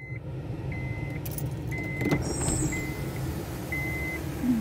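Car engine idling just after being started, with a dashboard warning chime beeping about once a second. A click about two seconds in as the electric sunroof opens.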